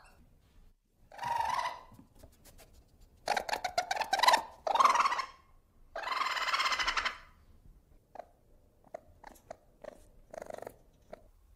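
Ferret making a string of short vocal bursts: a rapid run of clicks about three to four seconds in, and a longer breathy burst about six seconds in, with smaller ones after.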